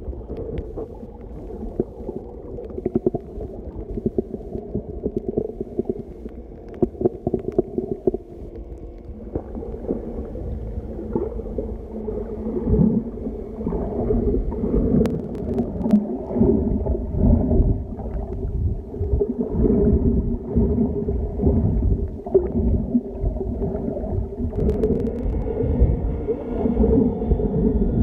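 Muffled underwater sound from a camera held below the surface: a low, wavering rumble and gurgle of moving water with a faint steady hum, and a few sharp clicks about halfway through.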